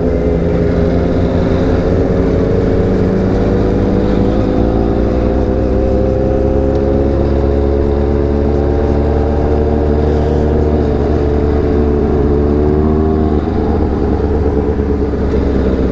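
Motorcycle engine running steadily while riding slowly in traffic, its pitch drifting gently, with a brief drop and recovery about thirteen seconds in.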